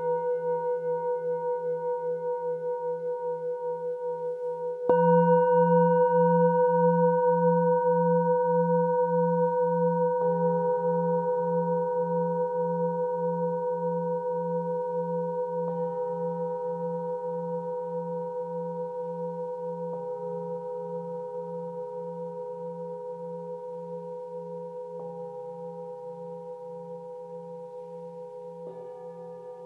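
Metal singing bowls struck in turn with a wooden mallet, a new bowl about every five seconds, the loudest strike about five seconds in. Their tones ring on together over a low hum with a slow pulsing wobble, fading gradually between strikes.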